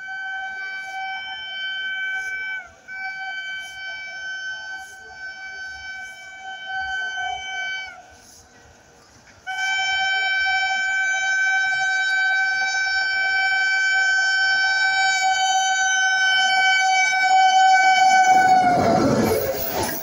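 WAP-7 electric locomotive's horn sounding as the train approaches at high speed: two blasts of a few seconds each, then one long, loud blast of about nine seconds. Near the end the horn stops and the loud rush and rumble of the express's coaches passing at speed takes over.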